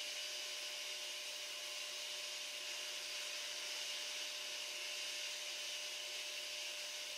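Water pump running steadily as it fills the flood-test tank, a constant whirring hiss with a faint steady hum beneath it.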